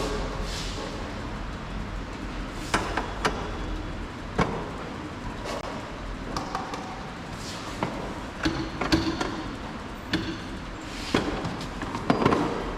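Scattered clicks and knocks of a mechanic working on a scooter's body-panel bolts and fittings, over steady workshop background noise.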